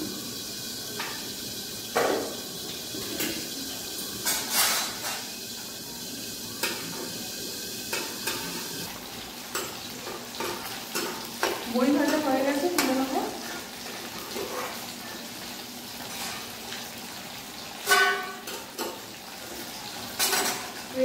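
Bori (sun-dried lentil dumplings) and pieces of bhola fish frying in hot oil: a steady sizzle, with a metal spatula scraping and now and then knocking sharply against the metal kadai as the bori are stirred. A brief wavering voice-like sound comes partway through.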